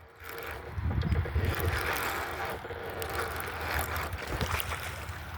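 Wind buffeting the microphone, a low rumbling gusty noise, with a few light knocks and rustles.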